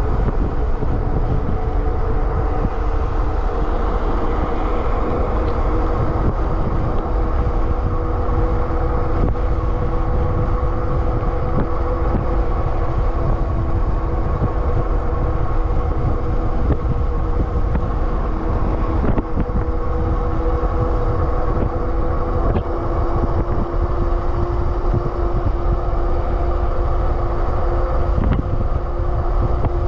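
Super73 RX electric bike riding at a steady cruise: wind buffeting the microphone and tyres on asphalt, over a steady whine from the bike's electric motor.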